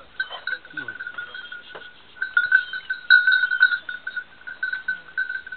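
A small metal bell jingling continuously in an uneven rhythm, louder from about two seconds in.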